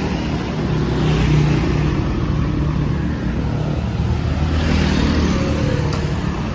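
Road traffic passing close by, motorcycles and other small vehicles with a steady engine hum and tyre hiss, swelling twice as vehicles go by, about a second in and again about five seconds in.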